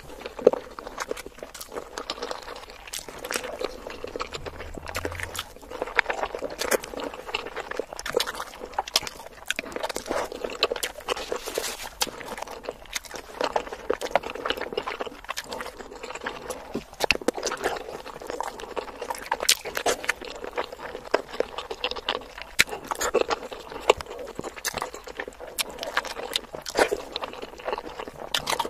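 Close-miked chewing of boiled eggs coated in spicy curry sauce: a dense run of wet clicks and smacks from the mouth.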